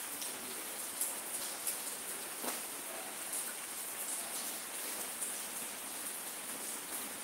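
Steady hiss with a few faint, scattered clicks and taps.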